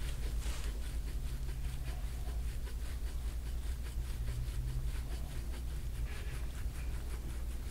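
A gua sha scraping tool stroking repeatedly over oiled skin, giving faint, short scraping swishes over a steady low hum.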